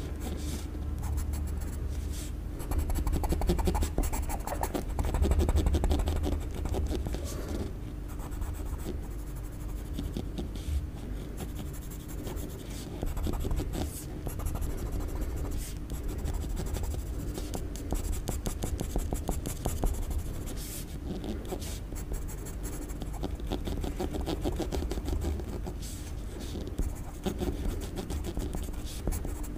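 Pencil scratching on paper in many quick, short sketching strokes, over a steady low hum.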